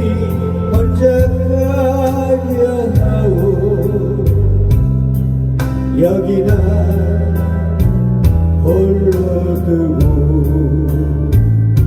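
Instrumental passage of a Korean folk ballad backing track: a lead melody line in long held notes with vibrato over a stepping bass line and a steady beat.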